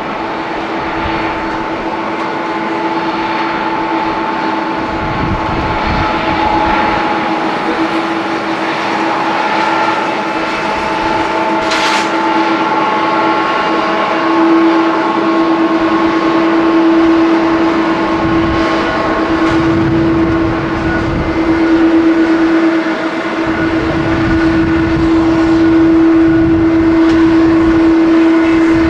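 Boeing 777-200ER jet engines at taxi power: a steady whine made of several held tones, getting somewhat louder and deeper toward the end. A sharp click sounds once about twelve seconds in.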